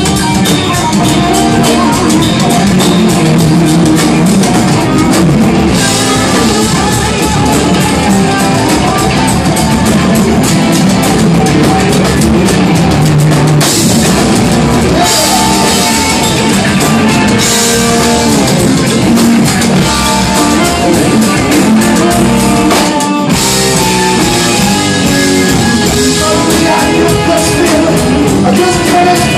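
Rock band playing live: electric guitars over bass and drum kit, loud and continuous, with no vocal line. The music breaks off for a split second about three-quarters of the way through.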